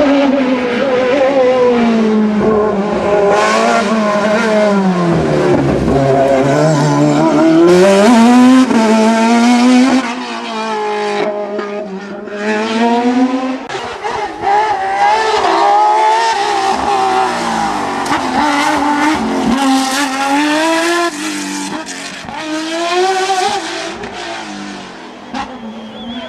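Hillclimb race car engine at high revs, the pitch climbing and dropping again and again as it shifts through the gears and brakes for bends. Louder in the first ten seconds, then growing fainter as the car moves away.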